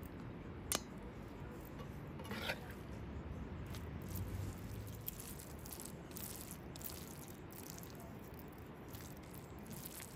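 Metal spoon scooping ground meat and vegetable filling from a frying pan and spreading it over stacked flatbread. A sharp clink against the pan comes just under a second in and a short scrape about two and a half seconds in, then soft wet squishing and light scraping.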